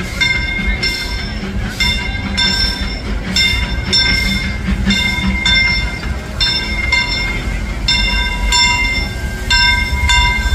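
A steam locomotive's bell ringing steadily, about two strikes a second, as the Disneyland Railroad's Fred Gurley, an 1894 Baldwin 2-4-4T, rolls into the station. Under the bell runs a low rumble from the moving train.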